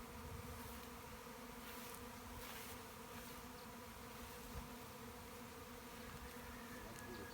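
A swarm of honeybees in flight, a steady pitched hum of many wingbeats that the swarm keeps up as it settles into a hanging cluster.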